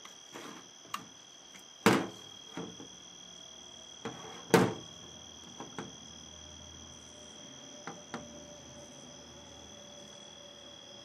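Metal casing of a 3.5-inch floppy disk drive being picked up and turned over on a hard surface. There are a few knocks and clunks, with two louder ones about two and four and a half seconds in, over a steady high-pitched whine.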